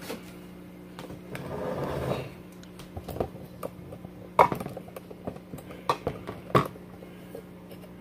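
Rustling and a few sharp knocks from a phone camera being handled and carried, over a steady low hum.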